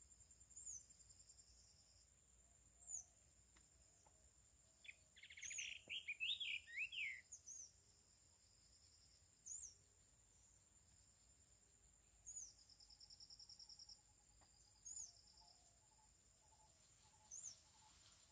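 Faint evening birds and insects: a steady high insect drone and a short high call repeated every two to three seconds. About five seconds in comes a brief burst of bird song, the loudest sound.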